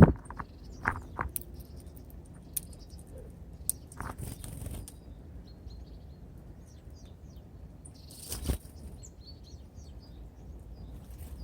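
Small birds at a feeder: short high call notes come and go throughout, with a few sudden louder wingbeat noises as birds land and take off, the clearest about four seconds in and about eight and a half seconds in.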